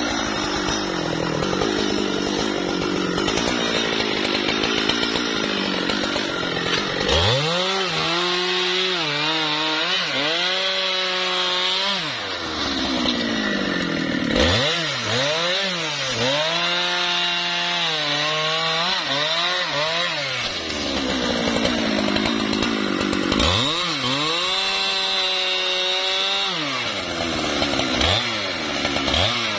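Husqvarna 395 XP 94 cc two-stroke chainsaw running at high revs while cutting into a tree trunk. The engine pitch repeatedly dips and climbs back in three spells as the chain bites into the wood.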